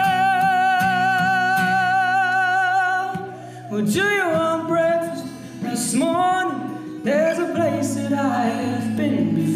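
Live solo acoustic song: a male singer holds one long note with a wavering vibrato for about three seconds, then sings several sliding, bending phrases over acoustic guitar chords.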